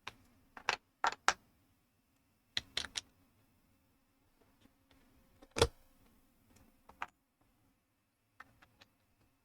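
Plastic building bricks clicking and knocking as they are handled and pressed together: scattered sharp clicks, a quick cluster around three seconds in and the loudest knock about five and a half seconds in, over a faint steady low hum.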